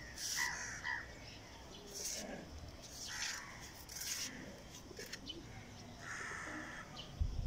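Crows cawing several times, a call every second or so, with a brief low thump near the end.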